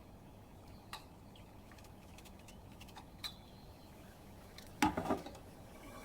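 Faint handling noise: a few isolated small clicks, then a short cluster of light clinks about five seconds in.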